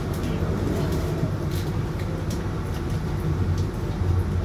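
Regional passenger train running, heard from inside the carriage: a steady low rumble with a few sharp clicks scattered through it.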